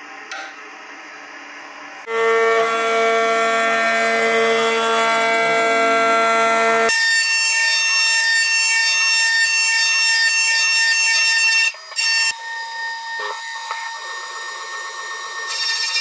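CNC milling machine cutting metal, sped up to four times real speed, so the spindle and cut give steady high whining tones. It starts about two seconds in and jumps abruptly to new pitches a few times as the operation changes, turning to a hissier cutting noise near the end.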